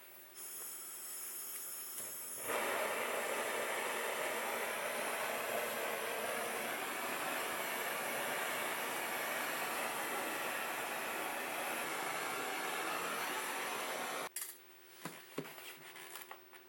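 A power tool whines as it starts up, then works wood with a loud, steady noise for about twelve seconds. It cuts off suddenly, followed by a few light knocks.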